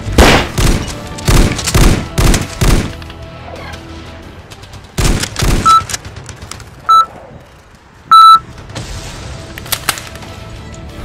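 Video-game-style gunfire sound effects: a rapid run of about seven loud shots in the first three seconds and a few more about five seconds in, over background music. Three short electronic beeps follow, about a second apart.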